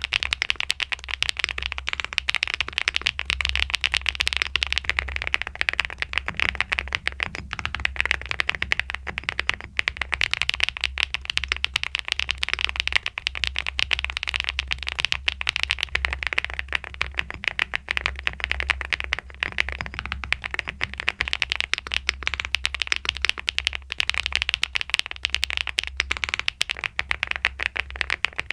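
Fast, continuous typing on a mechanical keyboard, a dense stream of key clicks and clacks, with a steady low hum underneath.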